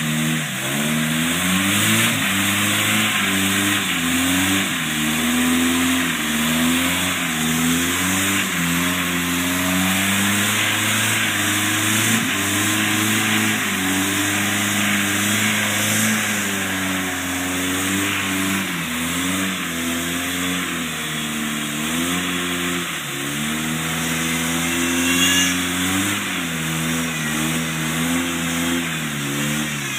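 Jeep YJ Wrangler's engine revving up and down over and over under heavy load as its mud tires spin and churn through deep swamp mud and water. A steady hiss of slung mud and spray runs under the engine.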